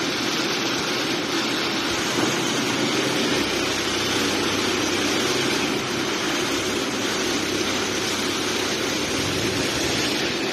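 Diesel engine of a KG420 crawler down-the-hole drill rig running steadily, a loud even machine noise with no breaks.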